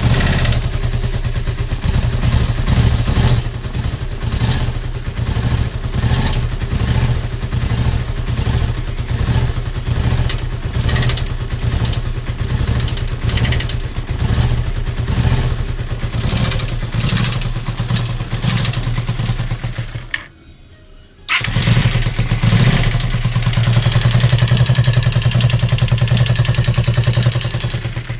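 Honda VT250F's V-twin engine running with a rapid, even knocking, which the owner takes for an engine knock in the used replacement motor. About twenty seconds in it drops out for about a second, then runs again steadily.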